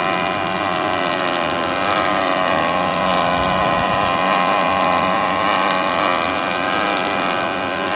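A 6-axis industrial robot welding machine at work, welding: a loud, steady, continuous sound with a few steady tones running through it.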